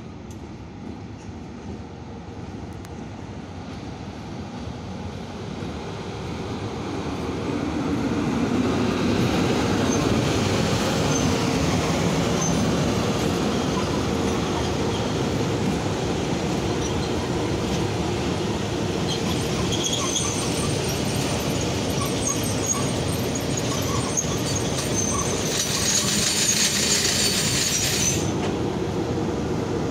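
VL82M two-section electric locomotive running light at low speed. It grows steadily louder as it approaches and passes close by, with thin high wheel squeals. Near the end, a loud high hiss lasts a couple of seconds and cuts off suddenly.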